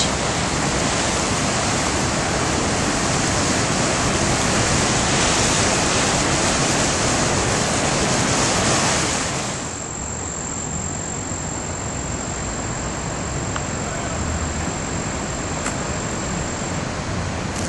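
Floodwater of the swollen Boquet River rushing under the bridge: a loud, steady rush of water. About nine and a half seconds in, the sound cuts to a quieter outdoor background with a thin, steady high whine.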